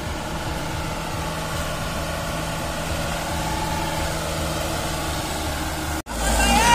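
Mitsubishi Fuso Canter truck's diesel engine running steadily as the truck approaches slowly over a rutted dirt road. Just after 6 seconds the sound drops out for an instant and comes back louder and closer.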